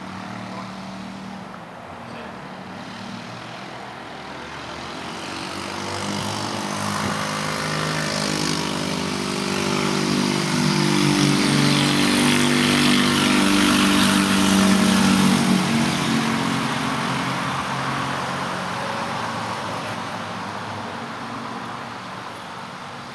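A passing engine: a steady drone that swells over about ten seconds, is loudest just past the middle, then slowly fades.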